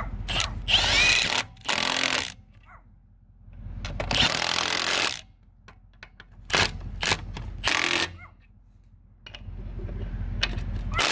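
Cordless impact wrench running lug nuts onto truck wheel studs in a series of bursts with short pauses between.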